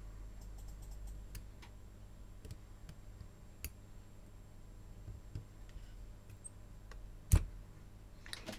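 Small, scattered clicks of metal tweezers working at a C-clip on a cassette deck mechanism's plastic-and-metal gear shaft, then one sharp, loud click about seven seconds in as the little split washer comes free.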